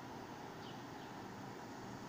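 Faint, steady background rumble and hiss of a distant subway train standing or slowly approaching a station, with two short high chirps about a second in.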